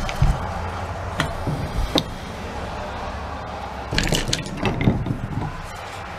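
Handling noises: scattered clicks and knocks as the cord and the open plastic housing of a Milwaukee angle grinder are moved about on a work mat, with a busier run of knocks about four to five seconds in.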